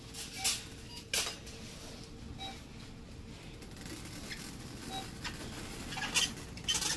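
Wire shopping cart rattling as it is pushed down a store aisle: a few short sharp clatters in the first second or so and again near the end, over faint background noise.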